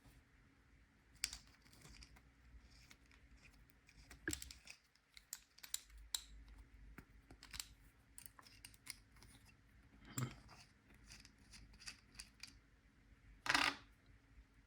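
Irregular small metal clicks, ticks and scrapes of tools and parts being handled while an Abloy Exec PL340 disc-detainer padlock is taken apart. A few louder knocks come through, and near the end there is a short scraping rasp.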